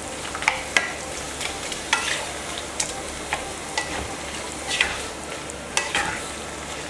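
Grated pineapple sizzling and simmering in its own juice in a nonstick wok over a medium-to-low flame. It is stirred with a wooden spatula that gives irregular scrapes and taps against the pan.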